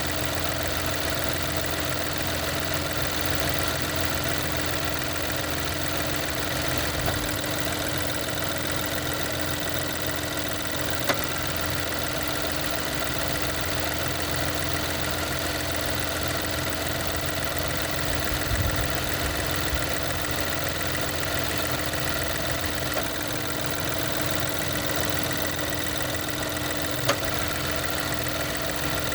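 2024 Chevy Trailblazer engine idling steadily, with a few sharp clicks several seconds apart as the AC compressor clutch engages and disengages. This is short cycling, which the owner suspects comes from a bad low-pressure switch or a low refrigerant charge.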